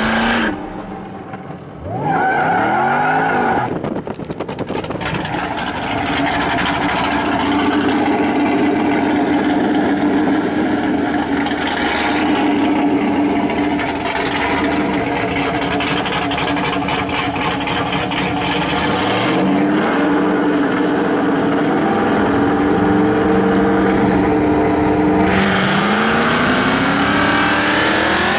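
V8 engines of a 2013 Camaro ZL1 and a C6 Corvette, heard from inside the ZL1, revved a few seconds in and again past the middle, running steadily in between. Near the end both rise in pitch together as the cars launch and accelerate hard.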